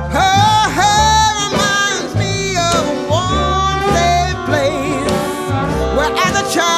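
Background music: a singing voice with wavering, gliding notes over a steady, repeating bass accompaniment.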